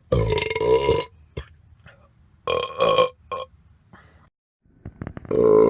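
A man burping loudly three times: a burp about a second long at the start, a shorter broken one about two and a half seconds in, and a long one starting near the end.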